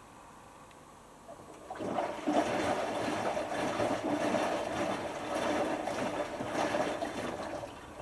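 Hotpoint HF8B593 washing machine taking in cold water: the inlet valve opens about two seconds in and water rushes in for about six seconds, then cuts off near the end. It is the cool-down fill of a 90 °C cotton wash.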